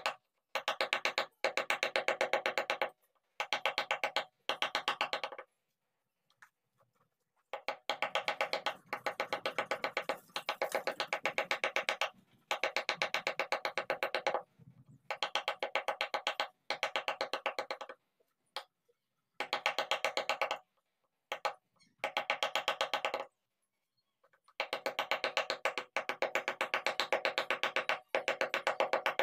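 A wooden mallet tapping a steel carving chisel into a hardwood panel in quick, even strokes, in bursts of a second or two broken by short pauses.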